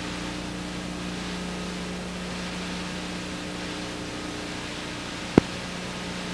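Steady hiss with a low, even hum from a film transfer that has no soundtrack. A single sharp click comes about five seconds in.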